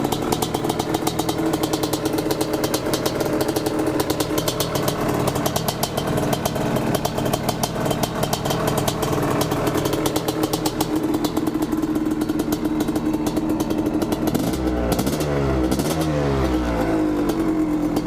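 1986 Yamaha Tri-Z 250 three-wheeler's two-stroke single running at idle with a fast, crackly firing, then blipped a few times near the end, its pitch rising and falling with each blip. It is freshly rebuilt and running well after starting on one kick.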